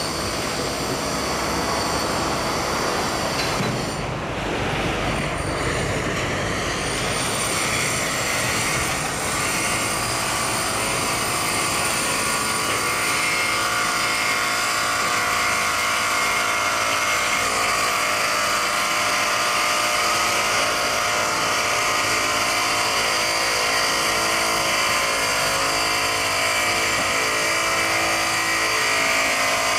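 A steady vehicle drone, with many held tones over it that come out more clearly from about twelve seconds in.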